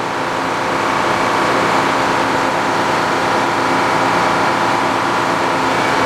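Belt-driven circular sawmill running, its large head saw spinning as the carriage carries a big poplar log to the blade. It is a steady, dense mechanical noise with several steady tones, growing a little louder in the first second and then holding.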